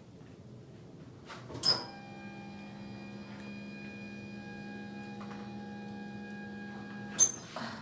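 A small electric motor hums steadily for about five seconds, switched on and off with a sharp click at each end.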